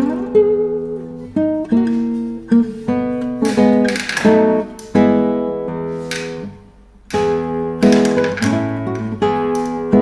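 Background music: acoustic guitar strumming and picking chords, with a short break about six and a half seconds in before the chords resume.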